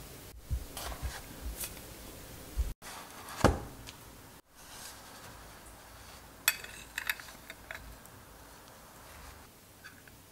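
Kitchenware handling: a ceramic baking dish knocked and set down, with the heaviest thud about three and a half seconds in, then a metal spoon clinking against the dish several times.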